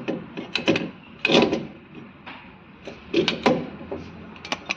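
Parts and tools being handled at a car's rear brake assembly: a series of short, sharp knocks and clanks, the loudest a little over a second in and again about three seconds in.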